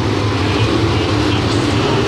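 Pack of dirt late model race cars racing at full throttle around a dirt oval, their V8 engines blending into one loud, steady drone.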